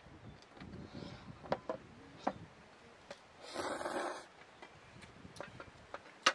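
Chopsticks clicking against metal cups while somen noodles are eaten, with one loud slurp of noodles about three and a half seconds in.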